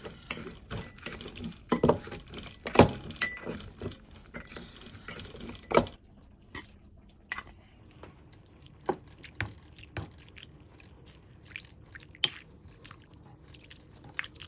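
Metal potato masher knocking and scraping against a ceramic bowl as it crushes roasted dried chillies with salt: a quick run of clinks and knocks for about six seconds, then scattered softer clicks.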